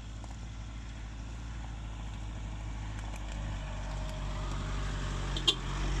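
Off-road pickup truck engine running steadily, growing gradually louder over the second half, with a single sharp click near the end.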